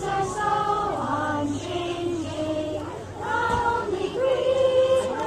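Choir of voices singing together, holding long notes.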